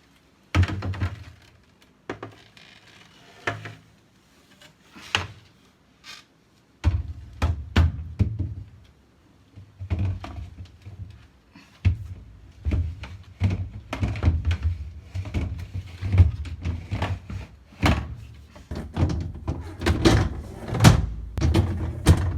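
Repeated clunks and knocks of glass refrigerator shelves and trays being fitted back into a fridge, a few isolated knocks at first, then a dense run of them from about seven seconds in.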